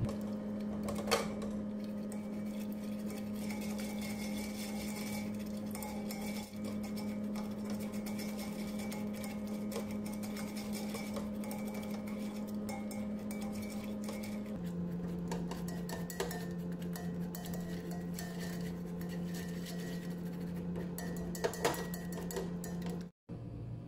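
A utensil scraping and clinking against a steel pot while stirring a thick gram-flour and yogurt mixture. A steady low hum runs underneath and steps slightly lower in pitch past the middle.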